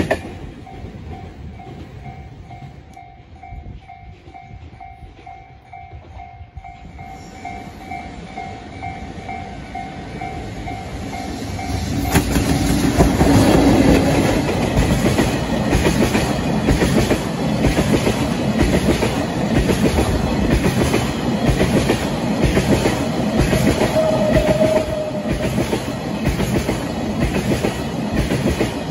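Railway level-crossing alarm ringing steadily while a freight train's rumble builds. About twelve seconds in, a JR Freight EF65 electric locomotive hauling tank wagons passes close by, loud, its wheels clattering rhythmically over the rail joints.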